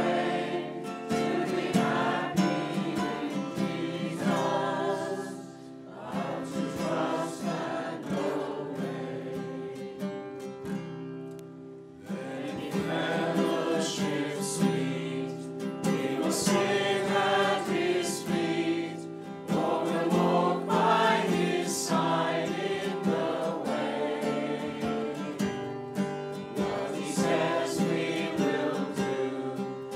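Congregation singing a hymn with instrumental accompaniment, in sung phrases with short breaks about six and twelve seconds in.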